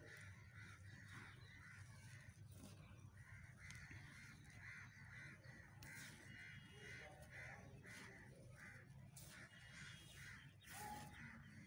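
Faint sound: a bird calls over and over in quick succession, with a few soft crunches as dry white cement lumps are crumbled in bare hands.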